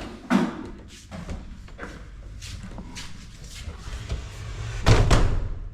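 A hotel room door being handled as it is opened with a key card: a series of clicks and clunks, with a louder thud about five seconds in.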